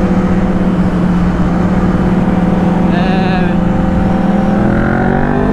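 Motorcycle engine running at a steady note under way, with wind rush on the microphone. The engine note begins to climb about four and a half seconds in as the revs rise.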